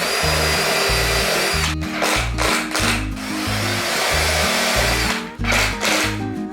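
Cordless power driver running screws into wood: two longer runs with a steady whine, with short bursts between them and near the end.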